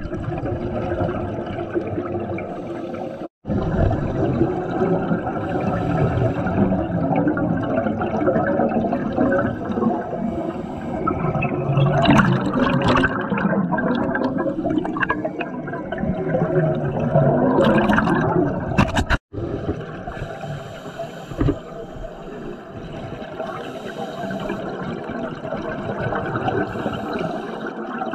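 Scuba diver's exhaled regulator bubbles and water noise heard underwater: a steady muffled rush with two louder bubbling stretches in the middle. The sound cuts out for an instant twice.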